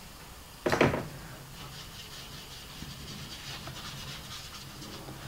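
A short loud bump about a second in. Then a squirrel-hair watercolour brush rubs and scratches softly over watercolour paper in short strokes.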